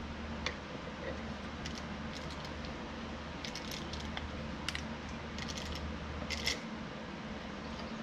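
Light metallic clicks and taps of a hand tool against aluminium transmission range sensor housings on a workbench, scattered and in small clusters. Under them runs a steady low hum that stops about six and a half seconds in.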